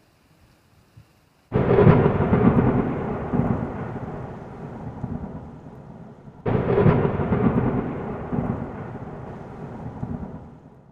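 Two thunderclaps, used as a sound effect: each starts suddenly and rumbles away over about four seconds. The first comes about a second and a half in, the second about five seconds later.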